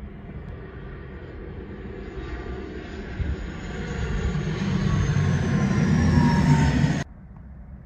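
De Havilland Canada Dash 8 twin-turboprop airliner on landing approach, gear down, passing low overhead: the engine and propeller drone builds to a peak with a falling whine as it goes over, then cuts off abruptly about seven seconds in.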